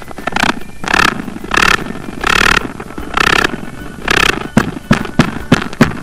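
Tarantula hissing defensively by stridulation: a series of short raspy hisses, about one a second, with sharp clicks between them in the second half.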